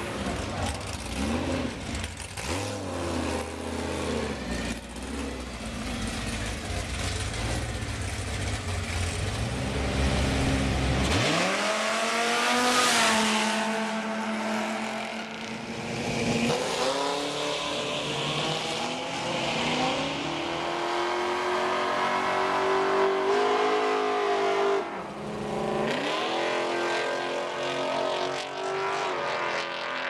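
Mopar muscle cars at the drag strip: engines idle and blip in a low rumble, then about eleven seconds in they launch at full throttle. The engine note climbs and drops back at each gear change, several times over, as the cars accelerate down the track.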